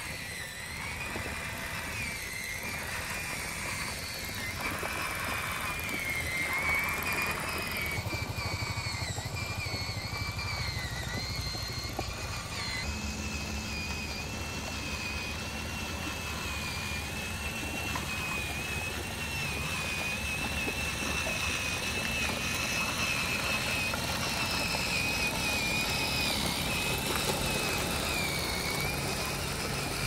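Small motor of a homemade tracked model vehicle running steadily, making a high whine that wavers slightly in pitch, over the rattle of its chain-and-sprocket track drive. A lower drone underneath grows stronger partway through.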